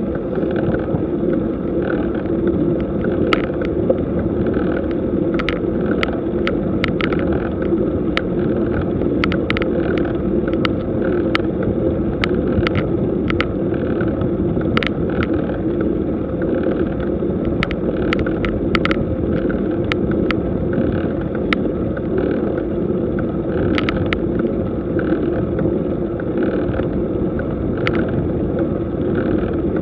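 A bicycle ridden slowly up a steep paved road: a steady rumble of tyres and drivetrain, with many scattered sharp clicks.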